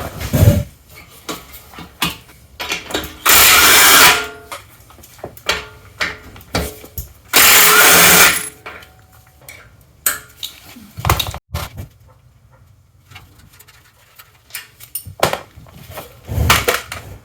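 Impact wrench run in two bursts of about a second each, about three and seven seconds in, loosening the nuts to take the scooter's front wheel off. Short metal clinks and knocks of tools and parts between and after.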